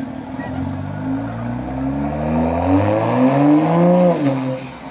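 MK5 Toyota Supra engine through an HKS titanium exhaust and catless downpipe, its note climbing in revs for about three seconds, then falling off sharply as the throttle comes off.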